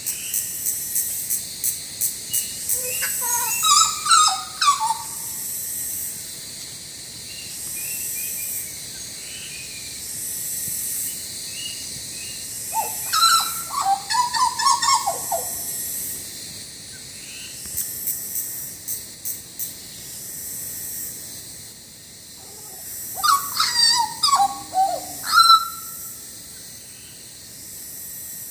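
Hooded butcherbird singing: three phrases of loud, melodious, fluty whistled notes that glide up and down, several seconds apart, over a steady high-pitched pulsing background.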